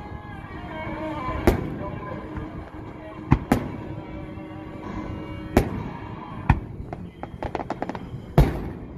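Aerial fireworks shells bursting over water, six sharp booms spaced a second or two apart. A quick run of small crackling pops comes just before the last boom.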